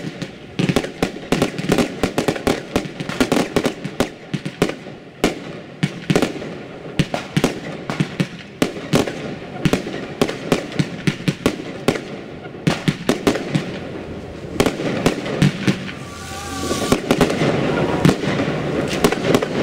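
Fireworks going off overhead: a rapid, continuous run of bangs and crackles from bursting aerial shells. A louder, denser rush of noise builds about three-quarters of the way through.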